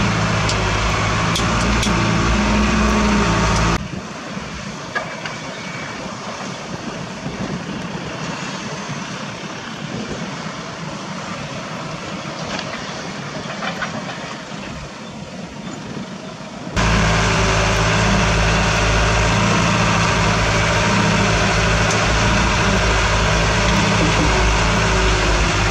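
Light dump truck's diesel engine droning steadily from inside the cab while driving. About four seconds in it cuts to a quieter stretch of outdoor truck engine sound with a few sharp knocks, and the loud cab drone returns about seventeen seconds in.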